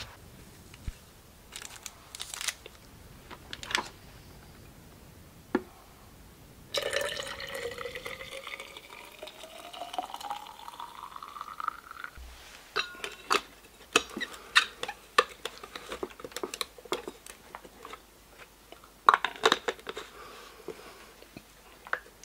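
Water poured from an electric kettle into a stainless steel vacuum flask, the pitch rising steadily for about five seconds as the flask fills. After that come sharp metallic clicks and clinks as the flask and its screw lid are handled.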